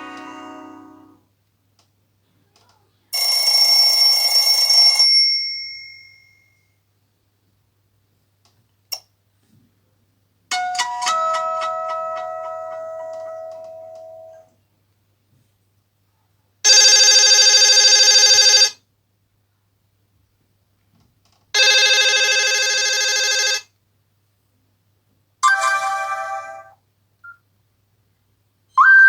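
Nokia C5-00 mobile phone playing a series of short preset ringtones and alert tones one after another, with brief silences between them. There is a chime that fades out, a single click, a tone that dies away slowly, then two bell-like rings of about two seconds each that cut off abruptly, and a shorter tone near the end.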